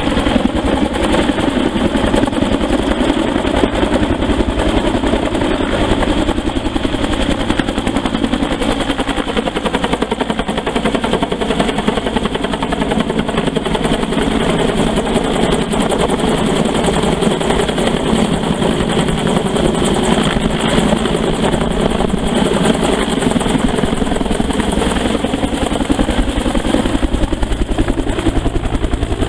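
Bell 205 helicopter running loudly and steadily, the rapid beat of its two-bladed main rotor over the whine of its single turboshaft engine.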